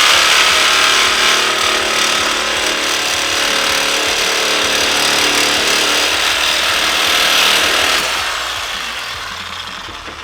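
Power tool running hard on a stuck bolt on a burned Harley-Davidson, loud and steady, then dying away over the last couple of seconds.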